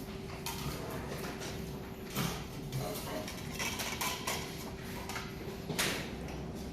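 Parts of a stand fan being handled and fitted together during assembly: scattered knocks and clicks, over a steady faint hum.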